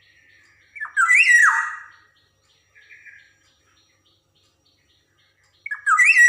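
Black-naped oriole (kepodang) giving loud, slurred calls that rise and then sweep downward: one about a second in, a short quieter call near the middle, and another starting near the end.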